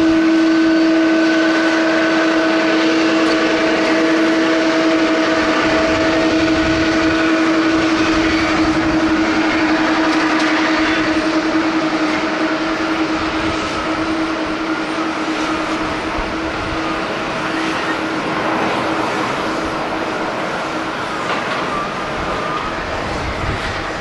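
Boeing 787 airliner's Rolls-Royce Trent 1000 jet engines at takeoff thrust through the takeoff roll: a steady rushing noise with a steady whine over it that fades near the end as the jet lifts off.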